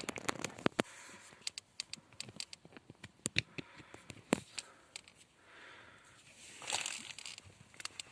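Hands handling a car's plastic electronic control unit and its wiring connectors: a scattered series of sharp clicks and taps, with a rustle near the end.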